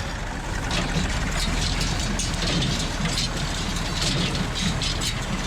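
Farm tractor's diesel engine running steadily at a low, even speed.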